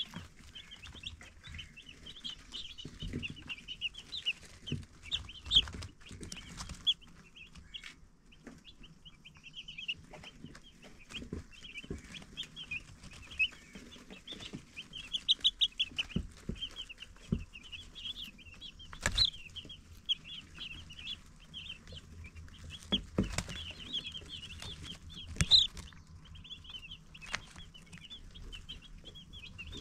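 A brood of baby chicks peeping continuously, many short high peeps overlapping, with a few sharp knocks now and then.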